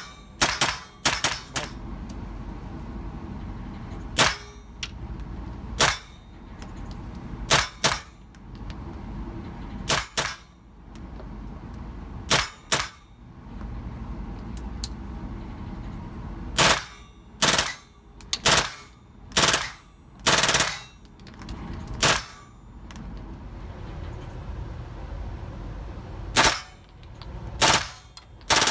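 Caracal CMP-9 9mm submachine gun with a built-in silencer firing semi-automatic: about two dozen single sharp shots at irregular spacing, some in quick pairs, with pauses of up to four seconds. A steady low rumble fills the gaps between shots.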